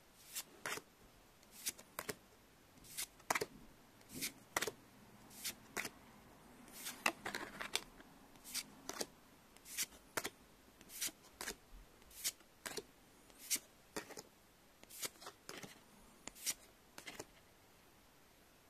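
Magic: The Gathering trading cards being flicked through one at a time, each card slid off the stack with a short papery snap, roughly two a second. There is a longer rustle of cards about seven seconds in, and the snaps stop near the end.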